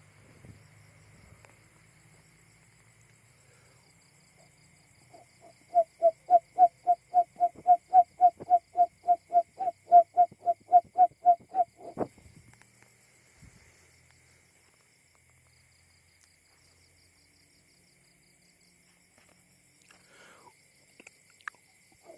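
Recorded call of a male barred buttonquail: a run of about twenty evenly spaced low hoots, about three and a half a second, starting about six seconds in and stopping abruptly about halfway through.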